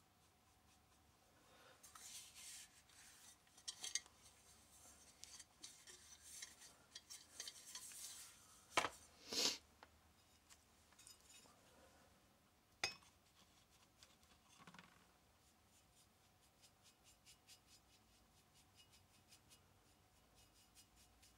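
Quiet handling of copper boiler parts and tools on a workbench: rubbing, scraping and small clinks, with two sharp knocks about nine and thirteen seconds in as metal meets the metal tray. Faint light scratching and ticking follows in the second half.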